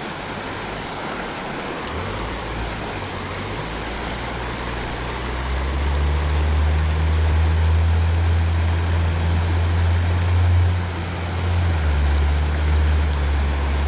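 Shallow trout creek rushing steadily over rocks. A low, steady hum joins about two seconds in and grows louder about halfway through.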